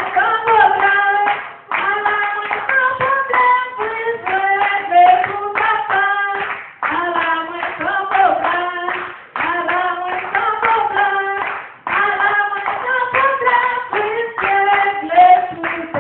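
A woman singing a Creole gospel song into a microphone, in sung lines broken by short breaths, with hand clapping along.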